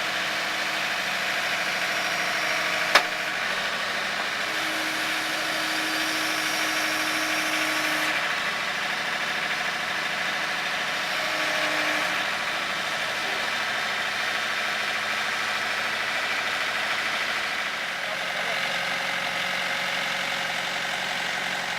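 Engine of heavy equipment running steadily, with a sharp click about three seconds in.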